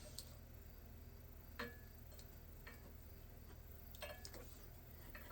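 A few faint, scattered clicks and light handling noises as a scooter instrument console's wiring connector is plugged in, the clearest click about a second and a half in and a small cluster near the end.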